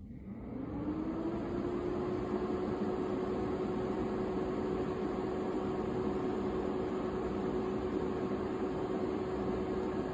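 Cooling fan of an Energizer portable power station spinning up, its hum rising in pitch over about a second, then running steadily with a rushing whoosh while the unit charges from a wall outlet at about 600–700 watts.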